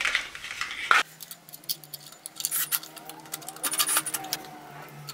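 Small hardware clattering as it is handled, then a cordless drill driving screws in two short runs, about two and a half and four seconds in.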